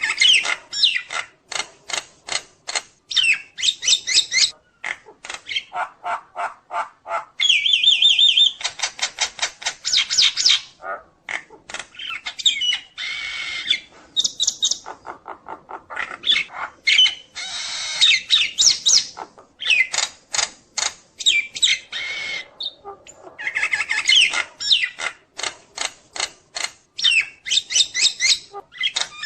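Nias hill myna singing vigorously, its song packed with varied phrases: runs of sharp, rapidly repeated notes mixed with whistles and squawks, broken by short pauses.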